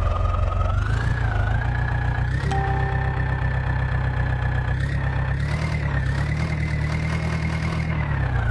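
Heavy diesel engine running under load, its speed rising and falling as it revs, with a high whine that rises and falls along with it.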